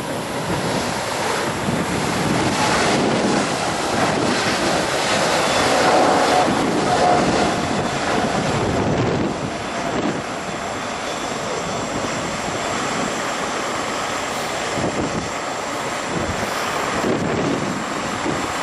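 Boeing 777-300ER's GE90 jet engines at takeoff thrust as the airliner lifts off and climbs away, mixed with heavy wind buffeting on the microphone.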